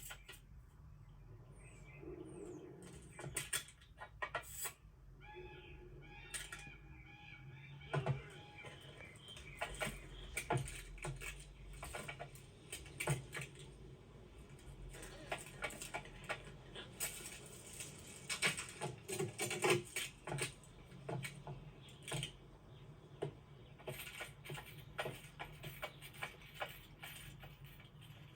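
Sound effects for an animated scene: a dense string of small clicks, taps and knocks, with a few brief squeaky pitched tones about five to seven seconds in, over a low steady hum.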